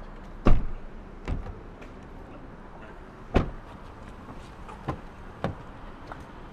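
Several sharp thumps and knocks on a police patrol car's door and body: the loudest about half a second in, another just after three seconds, with lighter knocks between and after.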